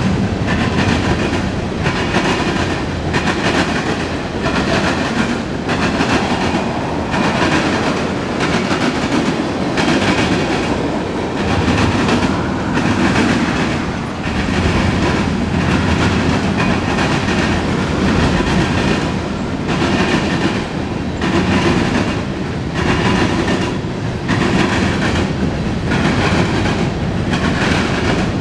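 Freight cars of a mixed freight train rolling past at close range, loud and steady, with wheels clicking over the rail joints in a repeating rhythm.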